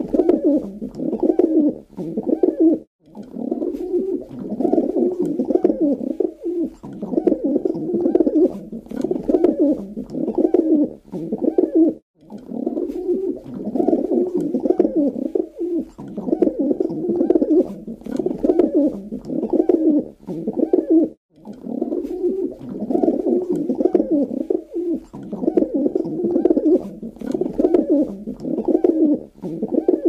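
Pigeons cooing in low, continuous repeated phrases, with a brief pause about every nine seconds.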